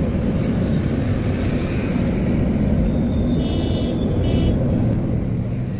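Steady engine and road rumble heard from inside a moving car's cabin. Two short high beeps cut through a little past the middle.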